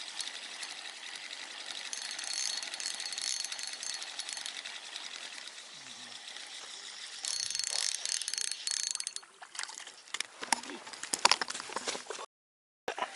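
Fishing reel being cranked to bring in a hooked fish: a steady whirring mechanism, louder for a couple of seconds past the middle, then a quick run of sharp clicks and knocks about ten seconds in, cut off abruptly near the end.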